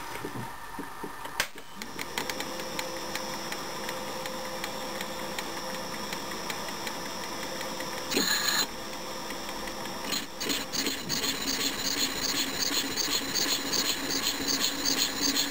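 Small metal lathe: a few handling clicks, then the motor and spindle running steadily from about two seconds in. From about ten seconds in the turning tool cuts into the face of the spinning metal disc, adding a rhythmic, pulsing scrape, as one of the two outer circles of the engraved pattern is cut. A short burst of noise comes just past eight seconds.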